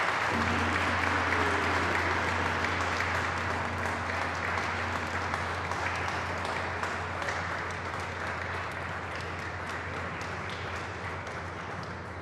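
A group applauding. A large hanging gong is struck about half a second in and rings on as a steady low hum under the clapping. The applause slowly fades toward the end.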